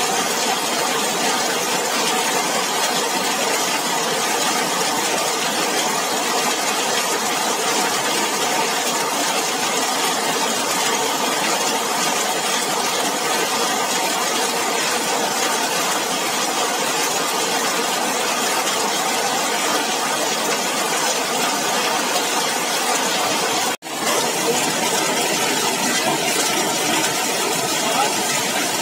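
Heavy rain falling steadily, drumming on a zinc sheet roof overhead. The sound cuts out for a split second near the end.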